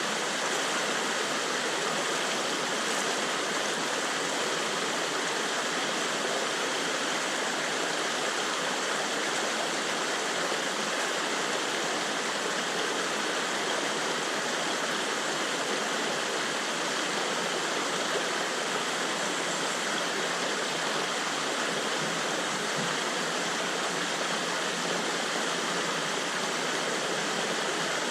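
Fast-running river water rushing steadily.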